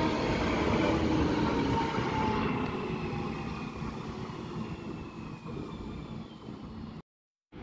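Train running on rails, its noise fading gradually with faint gliding tones over it; the sound cuts off suddenly near the end.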